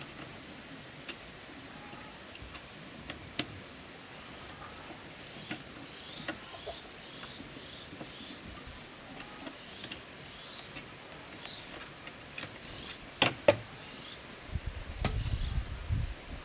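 Outdoor rural ambience: a steady high insect drone with a run of short high chirps from small birds or young fowl. A few sharp clicks come early, two loud knocks follow near the end, and then a low rumbling rustle of handling.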